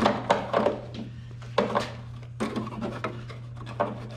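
Hands working a brass gas fitting into a plasma cutter's torch receptacle: a series of irregular clicks and scrapes of metal and plastic over a steady low hum.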